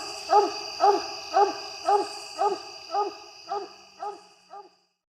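Coonhound barking in a steady rhythm, about two barks a second, each bark rising and falling in pitch, growing fainter and stopping shortly before the end. A steady high-pitched ringing sounds underneath and fades out with it.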